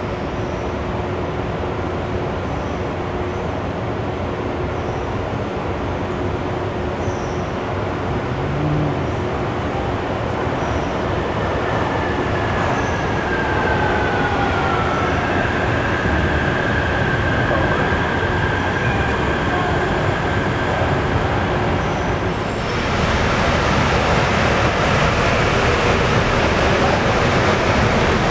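Distant rubber-tyred monorail trains (São Paulo Line 15, Bombardier Innovia Monorail 300) over steady city noise. An electric drive whine falls in pitch about halfway through, then holds steady for several seconds. A broader rushing noise swells near the end as the trains run on the curved guideway.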